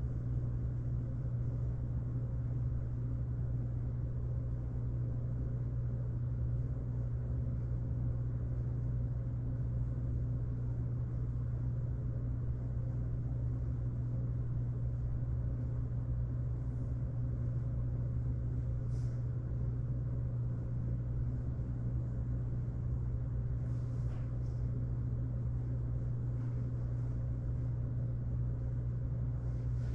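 A steady low mechanical hum at an even level, with a couple of faint brief ticks midway.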